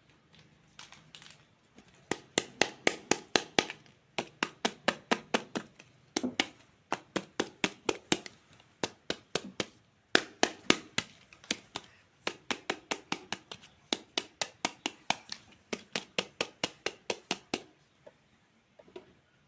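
Rapid runs of sharp taps, about five or six a second, each run lasting a couple of seconds with short breaks between and stopping near the end: a toy knife chopping toy fruit on a cutting board.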